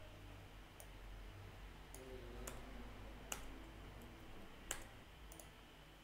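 Faint, scattered clicks of a computer mouse and keyboard during on-screen editing, about half a dozen, the two loudest roughly a second and a half apart in the middle, over a low steady room hum.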